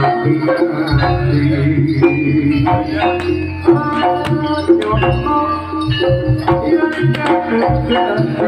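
Jaranan gamelan music: hand drums beating a busy pattern over struck metal percussion ringing short pitched notes and sustained low tones.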